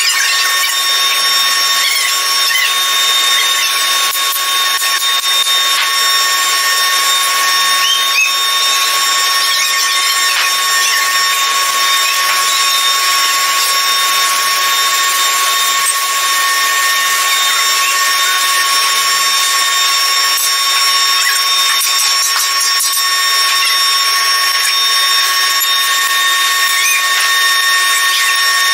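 Metalworking power machine running steadily, a constant high whine over a dense hiss.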